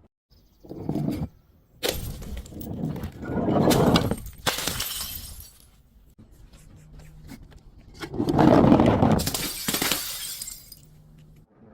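Glass bottles breaking and shattering: a short crash about a second in, then two long, loud crashes, the first about two seconds in and the second about eight seconds in.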